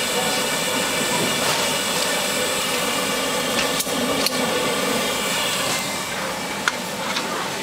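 A steady hiss from a gas-fired steel frying pot of oil, with a few light clicks and knocks near the middle and toward the end.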